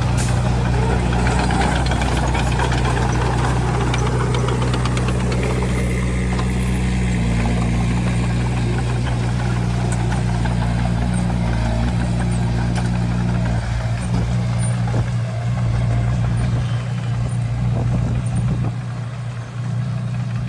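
A heavy machine's diesel engine running steadily at constant speed, its note shifting slightly for a few seconds in the middle.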